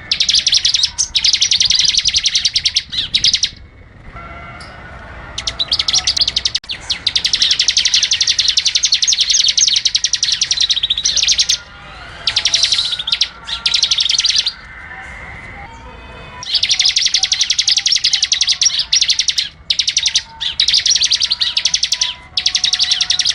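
Small songbird singing long runs of rapid, high-pitched chattering song, each several seconds long with short breaks between them, in the style of masteran birdsong used to tutor caged songbirds.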